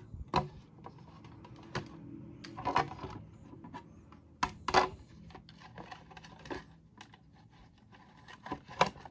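Irregular clicks and knocks of plastic parts and wiring being handled as a disassembled Bodum coffee grinder's housing, circuit board and connector are fitted back together. The loudest knocks come a little under 3 s in and near 5 s.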